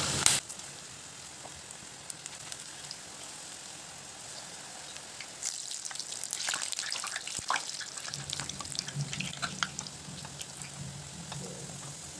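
Drumstick-leaf pakoda batter deep-frying in oil at medium heat: a brief loud sizzle at the very start, then a steady sizzle. From about five and a half seconds in it grows livelier, with many sharp crackles and pops.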